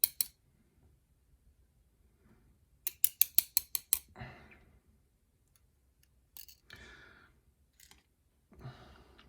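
Sharp metallic clicks of small lock parts being handled while a pin-tumbler lock is disassembled to pull out its driver pins: a couple at the start, a quick run of about seven around three seconds in, then a few scattered clicks and softer handling noise.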